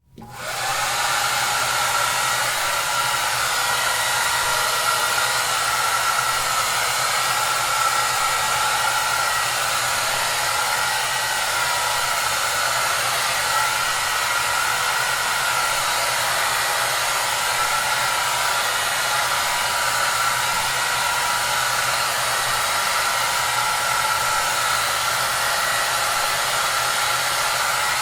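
Hair dryer starting up and then running steadily at full blast. It is an even rushing hiss with a slight whine in the upper midrange and a faint low hum, reaching full level within a second of starting.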